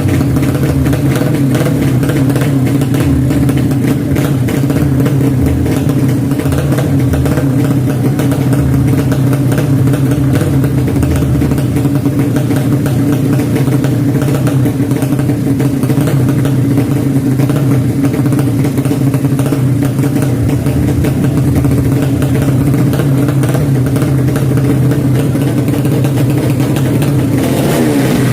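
Motorcycle engine running loudly at a steady speed, its note held constant, with a brief shift in pitch near the end.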